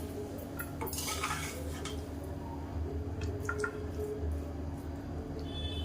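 A metal serving spoon scraping and clinking against a pot and plate as biryani rice is dished out, with a louder scrape about a second in. A low steady hum runs underneath.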